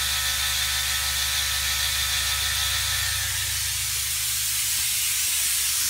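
Steady hiss of a vacuum brake bleeder drawing fluid, over a low steady hum from the ABS pump running under a scan-tool output test to bleed the ABS unit. A faint high whine fades out about halfway through.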